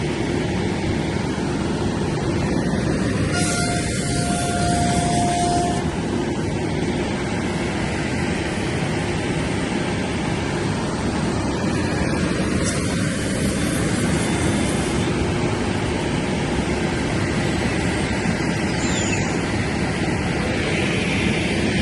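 CNC router cutting MDF: a steady, loud running noise from the spindle and the cut, with a faint brief whine a few seconds in.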